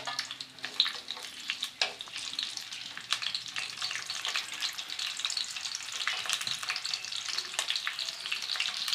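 Cumin seeds, whole spices and sliced green chillies sizzling in hot oil and ghee in a kadai, tempering, with a dense crackle of tiny pops that grows steadily louder.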